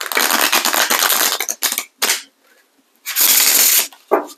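Small tarot deck being riffle-shuffled by hand: a fast rattle of flicking cards lasting about a second and a half, a couple of short taps, then a second, shorter burst of riffling about three seconds in.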